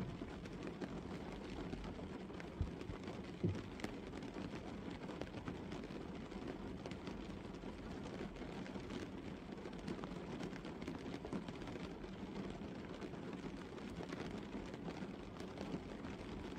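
Steady light rain falling on a car's roof, windscreen and bonnet, heard from inside the car, with two louder taps about three seconds in.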